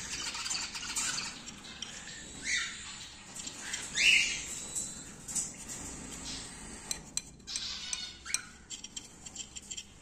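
Young cockatiel chicks calling, a few short calls, the loudest about four seconds in, with scattered small clicks and taps in the last few seconds.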